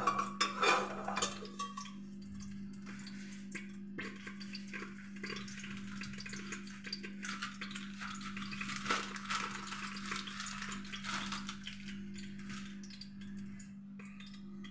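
A metal ladle scraping and clinking against a stainless steel pot during stirring in the first second or two, then a steady sizzle of panch phoron spices frying in ghee. A constant low hum runs underneath.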